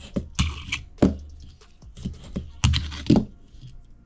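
Fingerboard tricks on a tabletop: the deck popping and landing in a handful of sharp clacks, two close together near the end, with a brief scrape about half a second in as it grinds along a small ledge.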